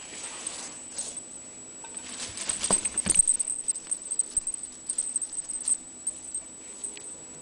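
Ragdoll kitten scampering and pouncing on a quilted fabric cover, its paws scrabbling and rustling. A flurry of rustles and light clicks comes about two to three seconds in as it tangles with dangled ribbons, then a few scattered taps.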